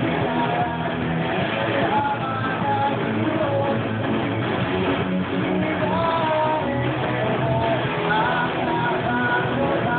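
Rock song with a singing voice and full band, an electric guitar being picked along with it.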